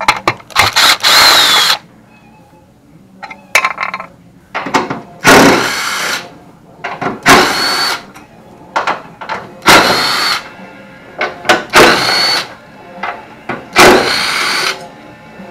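Cordless drill-driver running in about seven short whirring bursts, each a second or less, as it drives out screws along the top of a truck's radiator support. Small clicks come between the bursts.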